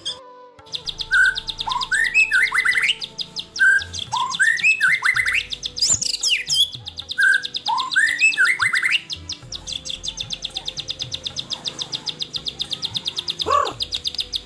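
White-rumped shama (murai batu) singing: clear rising whistled phrases repeated over a fast, steady, high trill. The whistles stop about nine seconds in, leaving the trill running alone.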